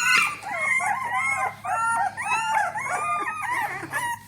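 A litter of two-week-old basset hound puppies crying and squealing, many short high-pitched arching whines overlapping one another without a break.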